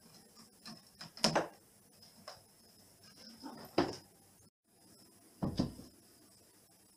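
Three dull thumps, about a second, four seconds and five and a half seconds in, with light clicks and taps between: a cat jumping down a cat tower and landing on its wooden platforms and wall shelves.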